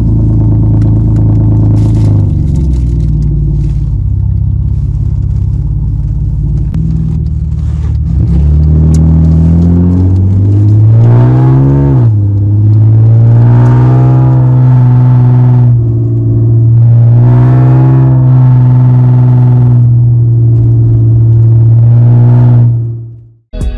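Mercedes 190E engine with a loud straight-pipe exhaust, heard from inside the cabin as the car pulls away and drives off. The revs climb and drop back as it picks up speed, then it cruises; the sound cuts off suddenly near the end.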